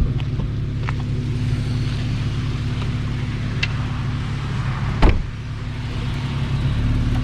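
Car engine idling steadily, with a single sharp thump about five seconds in.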